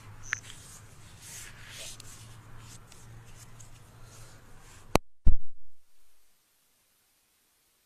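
Quiet background with a low steady hum, then a sharp click about five seconds in followed by a loud thump, after which the sound cuts off suddenly.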